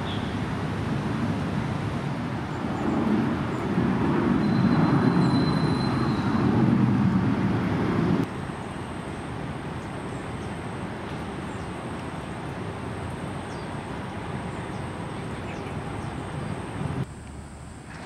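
Steady low rumble of city traffic. It swells a few seconds in and then drops abruptly about eight seconds in and again near the end.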